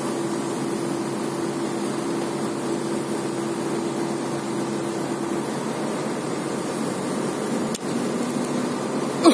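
Heavy construction machinery running steadily, a constant mechanical hum with a held tone that fades out about five and a half seconds in. A brief click about eight seconds in.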